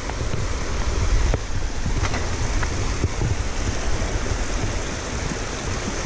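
Creek water running over rock slabs, an even rushing hiss, with wind rumbling unevenly on the microphone.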